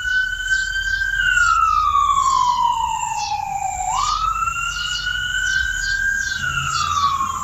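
Emergency vehicle siren in a slow wail: each cycle rises quickly, holds briefly and then falls slowly, repeating about every five seconds, over a low rumble.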